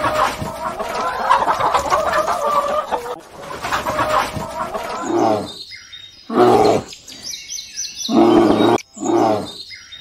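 A hen clucking for the first few seconds, then a bear roaring in four loud bursts over the second half.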